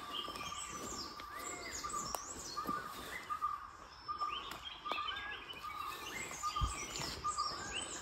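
Forest birds calling: many short chirps and whistles from several birds over a continuous high, beaded trill.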